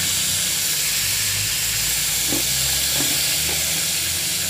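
Salted dried fish frying in hot oil in a wok: a steady sizzling hiss, with a few faint pops.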